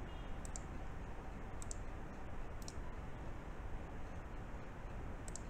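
Computer mouse clicks, four short clicks or quick click pairs spaced a second or more apart, over a faint low hum.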